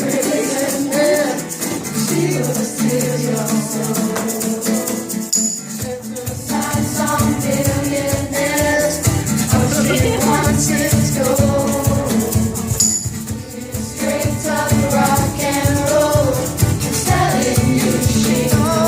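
Live band playing a song at a sound check: a lead vocal over guitar with a steady shaker-like beat, and the bass and full drums coming in about six seconds in.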